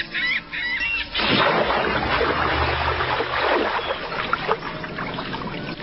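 A bird calling in quick repeated squawks, about three a second, over a steady music tone. About a second in, a sudden loud rushing noise takes over and continues.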